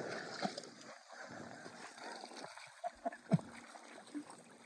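Quiet water splashing and gurgling, with a few short soft knocks scattered through it.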